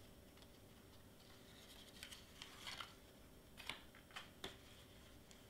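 Faint handling sounds of white cardstock pieces being folded and pressed together: a few soft crinkles and sharp little ticks, mostly in the second half, over near silence.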